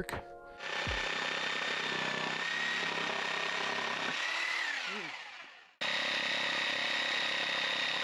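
Corded reciprocating saw running and cutting through a wooden 2x4 upright, with a steady high whine. It slows and stops about five seconds in, then starts again abruptly and runs on at full speed.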